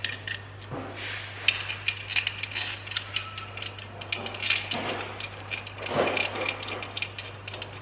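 Hand socket ratchet clicking in quick runs as bolts are screwed in, with a steady low hum underneath.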